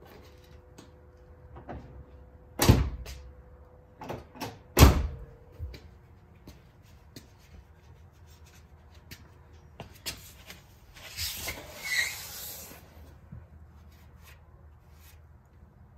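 Knocks and clanks of tools and car parts being handled during a front wheel hub and brake job, with two loud knocks about three and five seconds in and smaller clicks between. A hiss lasting a second or two comes around the middle of the second half.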